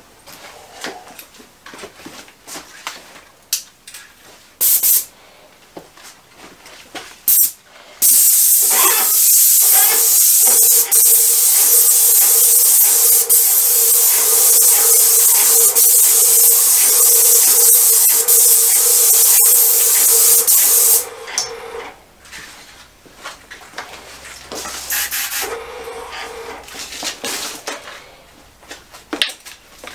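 Graco 495 ST Max II airless paint sprayer gun spraying paint at 1500 PSI: two short bursts, then one long steady hiss of about thirteen seconds with a steady hum under it, then a few shorter bursts near the end.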